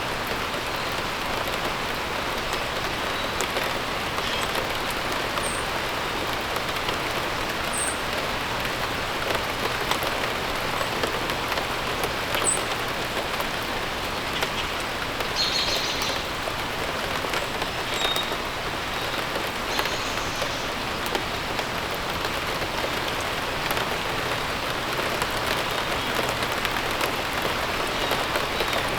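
Steady rain falling and pattering on surfaces, with a few short, high bird chirps scattered through it.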